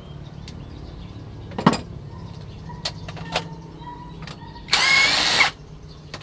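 Workshop sounds: a low steady hum with scattered sharp metallic clicks, and a loud hiss lasting under a second about five seconds in.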